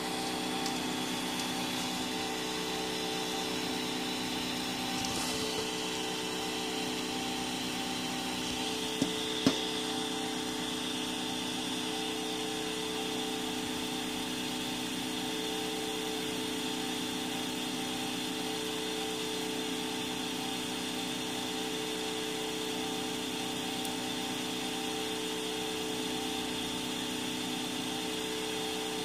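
3D printer extruder stepper motor running steadily as it feeds ABS filament through a hot end at 275 °C, a whine of several steady tones. Two brief clicks about nine seconds in.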